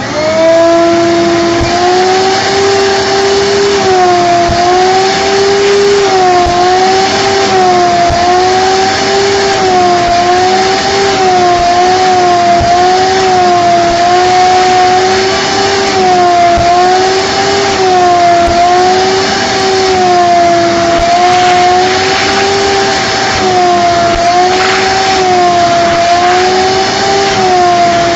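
Vacuum cleaner switched on and running steadily while vacuuming a car interior, its motor whine wavering up and down in pitch every second or two.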